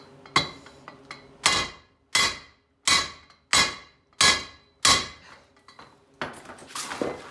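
Seven sharp metal-on-metal blows, evenly spaced and ringing, from a steel pipe slid over a 2004–07 Nissan Titan rear axle shaft being driven down to press the rear wheel bearing on. The bearing is not yet fully seated, about a quarter inch short. A few lighter metallic knocks follow near the end.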